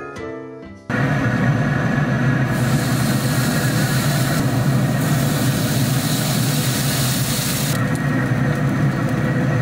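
Piano music ends about a second in. Then comes a steady, loud hum from a Traeger pellet grill running, with marinated steaks sizzling on its hot grate; the sizzling hiss is strongest in the middle.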